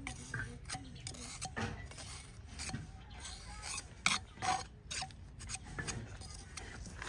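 Metal trowel scraping and smoothing wet cement around the rim of a pot mould, in short irregular strokes, the loudest about four seconds in.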